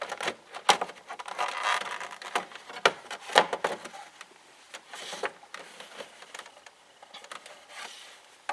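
Irregular clicks, taps and scrapes of a screwdriver and hands working at the screws and plastic trim of a car door panel, busier in the first half and quieter after about four seconds.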